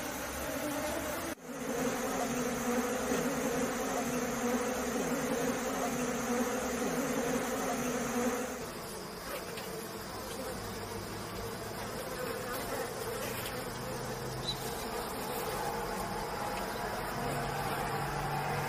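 A mass of wild honeybees buzzing around an exposed comb: a dense, steady hum that dips briefly about a second in and changes tone about halfway through.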